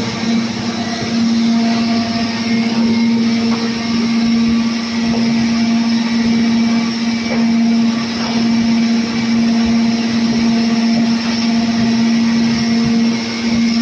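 EPE foam recycling machine running loudly and steadily: an even mechanical noise with a strong constant hum.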